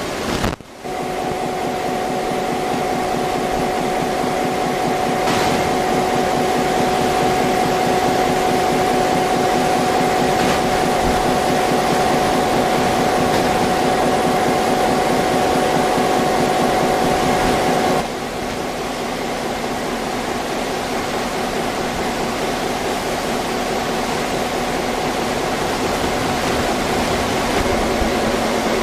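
Steady machine running noise with a constant humming whine. The whine stops about 18 seconds in while the running noise goes on.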